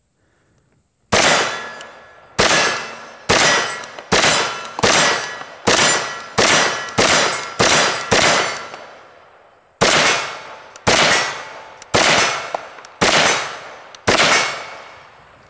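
Fifteen semi-automatic shots from an Auto Ordnance M1 Carbine Paratrooper in .30 Carbine, fired at roughly one a second with a pause of nearly two seconds after the tenth. Each shot rings on with a clang as steel targets are hit.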